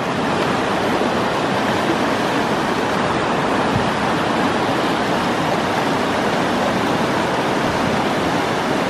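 River rapid rushing, a steady roar of white water.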